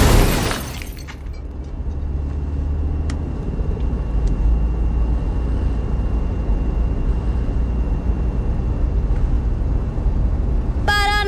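Steady low rumble of a minivan driving at speed, heard from inside the cabin. Music cuts off in the first second and comes back in right at the end.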